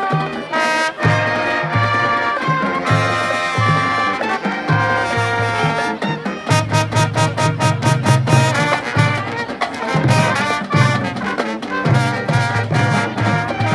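High school marching band playing its field show: a brass melody over a moving bass line, with drum strokes coming thick and fast from about halfway through.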